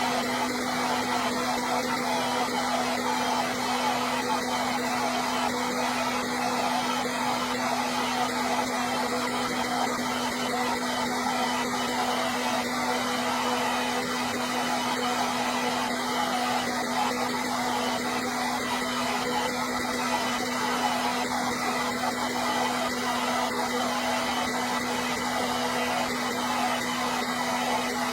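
Hair dryer running steadily: an unbroken rush of air over a constant low motor hum, with a faint high whine above it.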